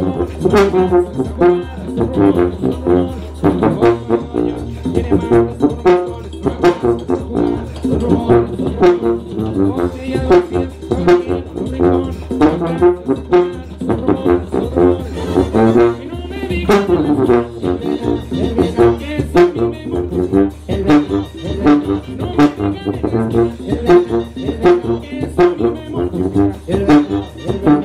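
Sousaphone playing a banda bass line along with a recorded banda band, whose brass and steady drum beat sound with it.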